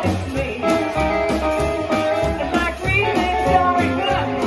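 Live rockabilly band playing: upright double bass, hollow-body electric guitar and drums keeping a steady beat, with a woman singing.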